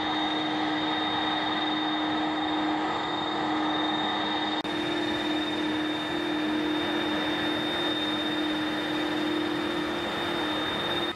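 Airbus A300-600ST Beluga's General Electric CF6-80C2 turbofan engines running at low taxi thrust, a steady jet whine with a high tone over a broad rush. There is a brief dropout about halfway through.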